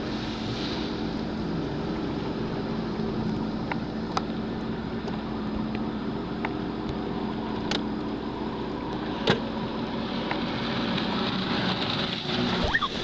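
Jet ski engine running steadily at one droning pitch, with water rushing and splashing around the hull and a few sharp clicks.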